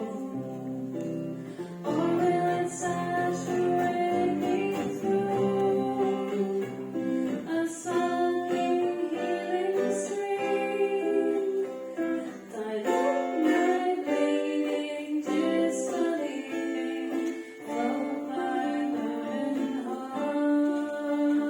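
Voices singing a song to a strummed acoustic guitar.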